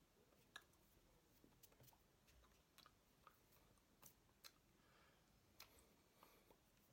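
Near silence: quiet room tone with faint, irregular small clicks and taps scattered through it.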